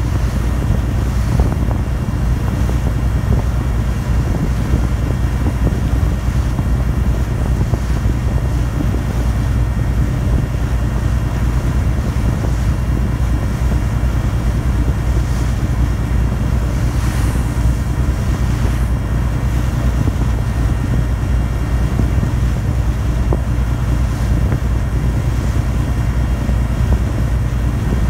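Meon Kaiun passenger ferry's diesel engine running steadily underway: a constant low drone heard aboard, with the rush of water and wind over it.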